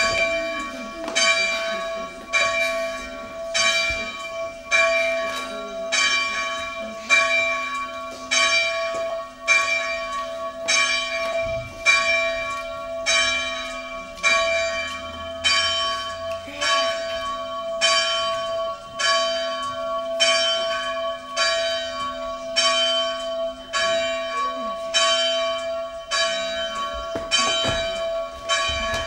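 A bell struck over and over, about once a second, at an even pace, its ring carrying on between strikes.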